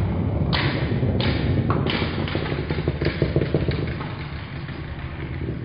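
Beyblade Burst tops spinning on a stadium floor: a steady low whirr, broken by sharp clicks and clacks as they knock into each other and the loose burst parts. The clicks bunch up twice and thin out, and the sound gets quieter over the last second or two.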